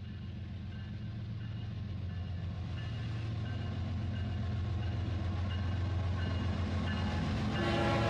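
A train's steady running rumble that grows gradually louder as it approaches, with a horn sounding near the end.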